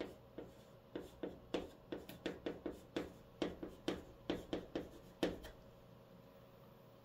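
Chalk writing on a slate-type chalkboard: a quick run of short, sharp chalk strokes and taps as Korean letters are written, stopping about two-thirds of the way through.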